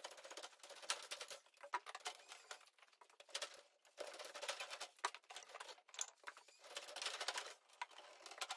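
Radiant-heat tubing being pulled off its coil and along the floor joists: faint, irregular scraping and rustling in short bursts, with small clicks.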